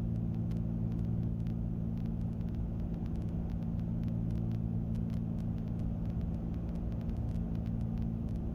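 Cessna 310Q's twin piston engines and propellers droning steadily on final approach: an even, low hum with faint ticking over it.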